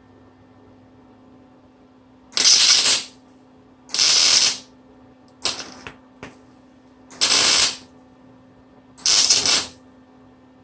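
Welding arc laying a series of short stitch welds on a steel radiator-mount bracket: five bursts of about half a second each, roughly a second and a half apart, one of them cut short near the middle, over a faint steady hum.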